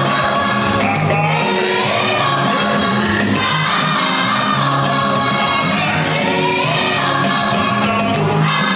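Live Yoruba gospel praise music: a male lead singer and voices in chorus singing over a band, with bass notes and a steady beat.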